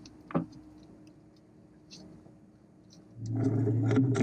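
A steady, low motor hum starts suddenly about three seconds in, after a quiet stretch broken by one click.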